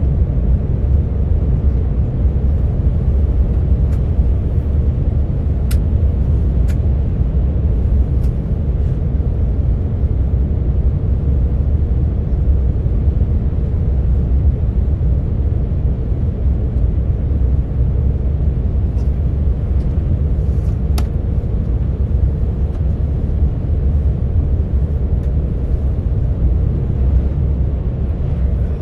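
Steady low rumble of a train running, heard inside the passenger car, with a few faint clicks.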